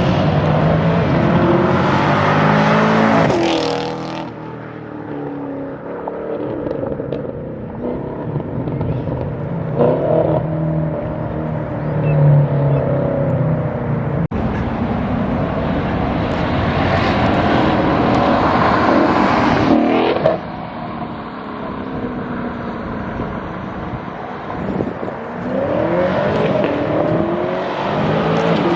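Modified V8 muscle-car exhaust with its mufflers deleted or opened up, revved again and again: loud rises and falls in pitch, settling back to a lower idle between the pulls. There is an abrupt break about halfway through.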